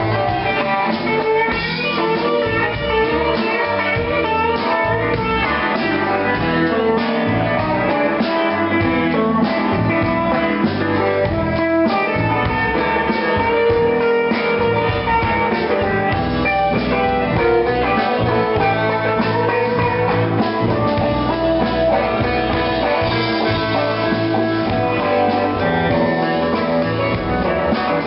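Live blues band playing an instrumental passage: guitar leading over drums and bass at a steady level.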